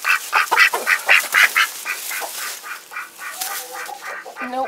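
Poultry calling in a fast repeated series, about four calls a second, loudest in the first two seconds and then softer, with a short lower-pitched call near the end.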